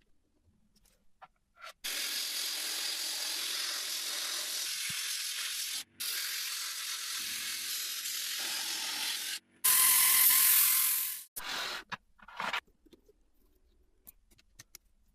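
Spray hissing in long bursts: two of about four and three and a half seconds, a louder one of about a second and a half, then two short puffs, typical of cleaning a typewriter's mechanism with a spray.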